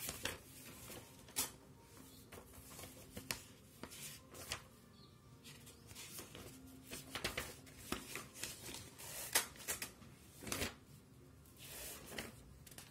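Scattered rustling, scratching and light tapping of paper and a hand-held phone being handled, in short irregular bursts.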